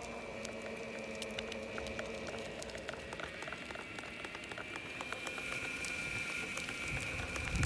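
Evolve GTR electric skateboard running in a straight line: a steady whine from the drive with many small irregular knocks and clicks over it. The knocking comes only when riding straight and stops when turning; its cause is unknown.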